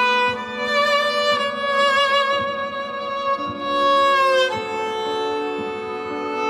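Viola layered with a loop pedal into a string-ensemble texture: long bowed notes held over sustained lower notes, with the melody stepping down about four and a half seconds in.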